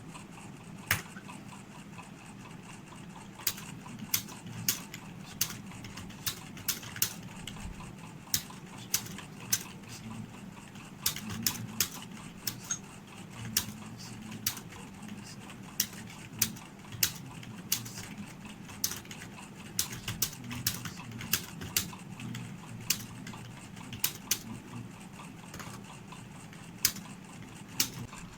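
Computer keyboard keystrokes, clicking irregularly about once or twice a second, over a low steady hum.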